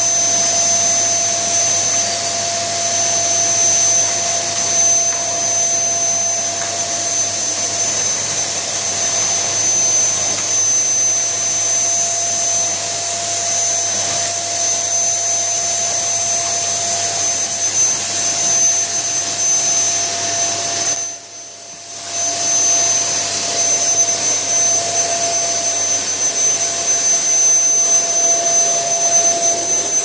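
Vacuum cleaner running steadily as its floor nozzle is moved over a wooden floor, a constant noise with a high steady whine over it. The sound dips briefly a little past two-thirds of the way through, then comes back.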